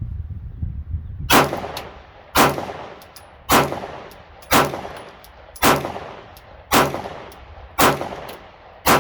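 Glock 19 Gen 5 9mm pistol fired in a steady string, eight shots about a second apart, each with a short echoing tail. The pistol cycles through the factory magazine with no malfunctions.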